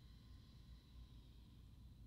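Near silence: low room tone with a faint steady high-pitched tone.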